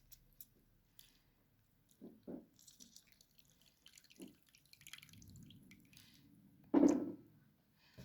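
Lemon juice dripping from a spoon, with a few light taps and a louder knock near the end.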